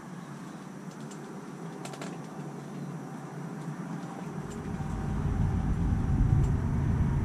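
Wind buffeting the microphone out on the open ice: a low rumble that sets in about four seconds in and grows louder, after a few faint clicks.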